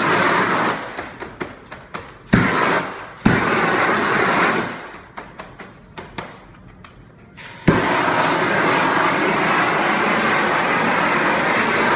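18,000 BTU propane shrink-wrap heat gun blowing its flame in bursts, each starting with a sharp click, heating the plastic shrink wrap on a boat. Two short bursts come in the first half; a long steady burst starts about eight seconds in.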